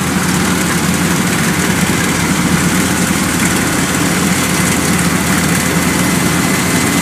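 Kubota DC-105X combine harvester running with a loud, even engine drone that holds steady throughout.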